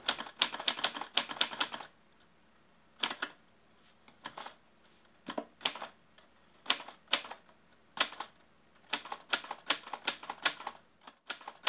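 Typewriter keys striking in short runs of quick strokes, separated by pauses of about a second.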